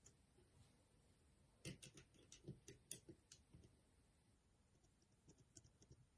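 Faint, quick clicks and taps of small tools against the plastic and metal parts of a Nokia Lumia 630 smartphone being taken apart: a run of about a dozen clicks over two seconds, then a few softer ones near the end.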